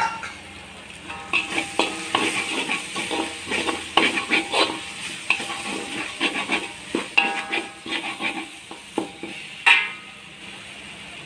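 Metal spatula scraping and knocking against a wok as a thick spice paste is stirred and fried, with a light sizzle underneath. The strokes start about a second in and each rings briefly, the loudest knock coming near the end. The rendang paste is being fried dry until crisp.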